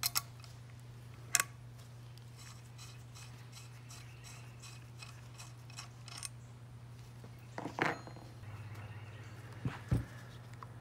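Scattered metallic clicks and clinks of hand tools and car parts being handled. There is a run of light ticks in the middle and a few louder knocks near the end, over a steady low hum.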